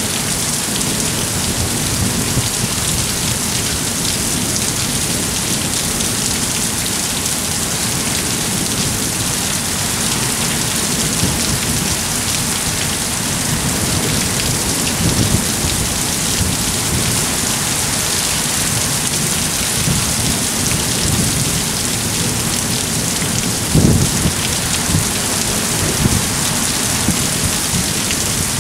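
Heavy monsoon rain pouring steadily, with a few short, low rumbles of thunder; the loudest comes late on.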